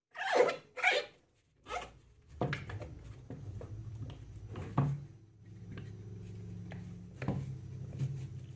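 A sheet of rubber being handled and pressed down onto a wooden push-block base, rustling loudly twice near the start. Plastic spring clamps are then snapped on, giving a few sharp clicks over a steady low hum.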